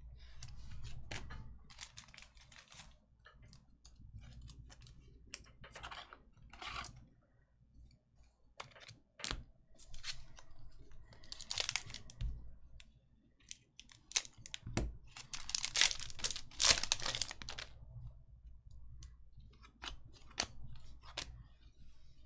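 Hockey trading card packs being torn open and their wrappers crinkled, with cards handled: irregular short tearing and rustling sounds, with a run of louder crinkles about two thirds of the way through.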